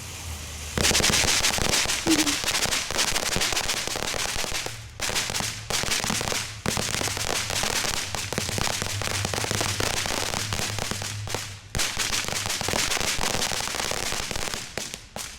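Consumer firework crackling: a dense, rapid run of small pops starting about a second in and going on for some fourteen seconds, with a few brief breaks.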